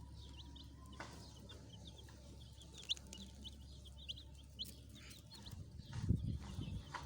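Baby chicks peeping: many short, high-pitched chirps from several birds, overlapping at a quick irregular rate. A few dull low knocks come near the end.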